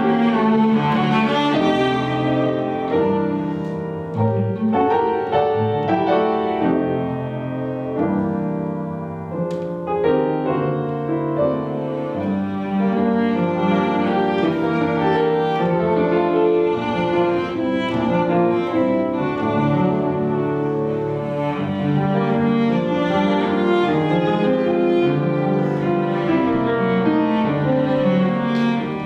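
Classical chamber music: bowed strings, violin and cello, playing sustained melodic lines with piano.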